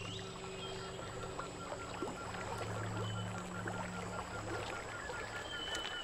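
Quiet river water ambience with light lapping and splashing as a neotropical cormorant fishes at the surface. A short rising bird chirp comes near the start and again near the end, over a low steady hum.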